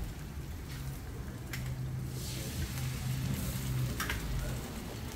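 Eggs frying on a hot flat-top gas griddle: a steady sizzling hiss, with a couple of sharp metal clicks about a second and a half and four seconds in.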